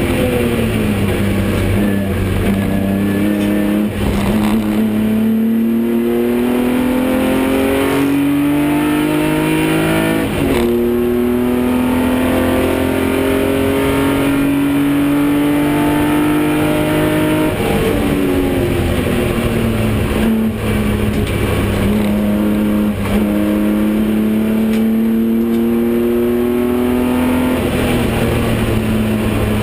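BMW 325i racing car's straight-six engine heard from inside the cabin, pulling hard on track. Its note climbs slowly in long pulls, changes sharply about ten seconds in, slides down for a couple of seconds a little past the middle, then climbs again.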